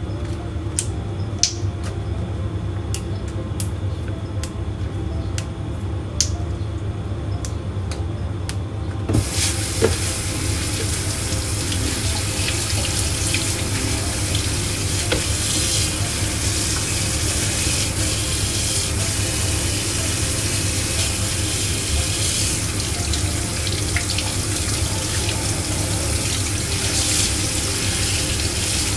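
A few light clicks and knocks, then about nine seconds in a kitchen tap is turned on and water runs steadily into a plastic colander in the sink as vegetables are rinsed.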